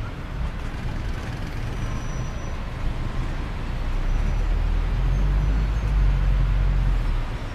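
Road and engine noise inside a moving car: a steady low rumble with a hiss of tyre and wind noise.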